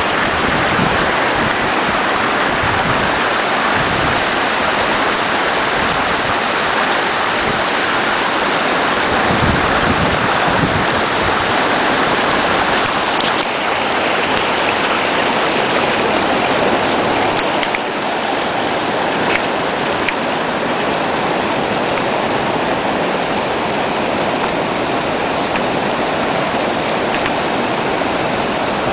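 Fast, shallow river water rushing over rocks, a loud steady rush.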